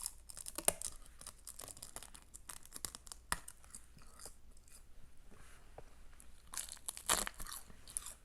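Thin, crisp sheets of seasoned seaweed snack being bitten and chewed close to the microphone: rapid dry crackles. The crackles come in clusters, most densely near the start and again about seven seconds in.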